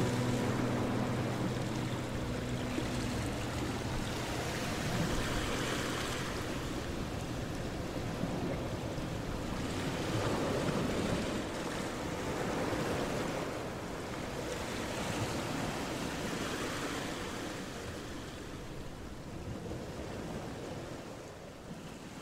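Rushing noise that swells and ebbs every few seconds, fading out near the end.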